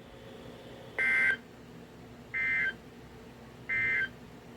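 Emergency Alert System end-of-message signal: three short bursts of SAME digital data, each about a third of a second long and about 1.4 seconds apart, high-pitched and warbling. The signal marks the end of a weather radio alert.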